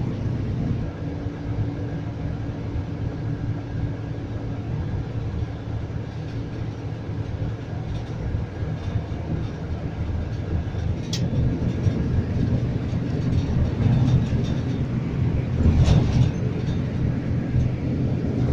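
Scania coach running on the road, heard from inside the cabin: a steady low engine drone over tyre and road rumble, growing louder in the last few seconds, with a couple of sharp rattles.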